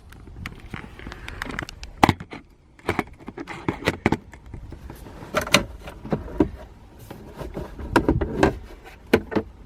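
Plastic glove box of a Chevrolet Impala being worked loose and dropped out of the dashboard: a series of irregular plastic clicks, knocks and rattles, the loudest about 2, 5.5 and 8 seconds in.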